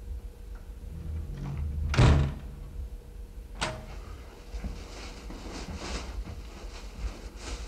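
A room door opening or shutting, with a loud thud about two seconds in and a sharp click about a second and a half later. Soft scuffing and rustling follow as someone comes into the room.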